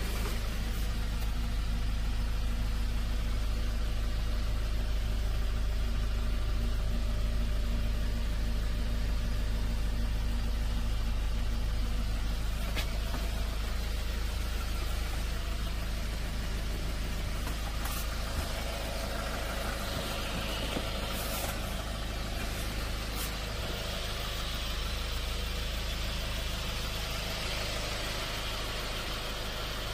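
The Hyundai H1 Starex's 2.5-litre turbo-diesel idling, a steady low hum heard inside the passenger cabin, with a few light clicks.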